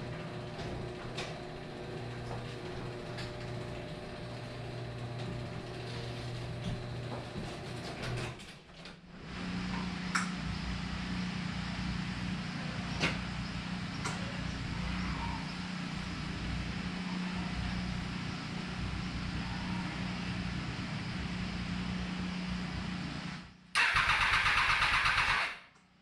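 A Triumph motorcycle engine is turned over on its electric starter for about two seconds near the end and stops without firing. The owner puts the no-start down to the fuel pump, which he did not hear prime. Before the cranking there is a steady low hum.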